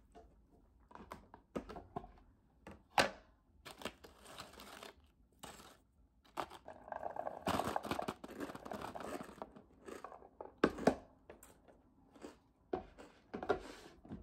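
Potato chips and a plastic container handled on a paper plate: scattered crinkles and sharp clicks, then a denser stretch of rustling for about three seconds midway as blueberries are poured out of the plastic container onto the plate.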